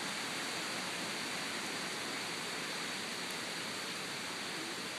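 Storm wind rushing steadily through the leafy trees, an even, unbroken noise.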